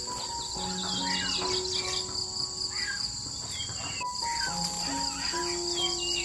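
Soft instrumental background music with held notes, mixed with a steady high insect trill like crickets and short falling bird chirps.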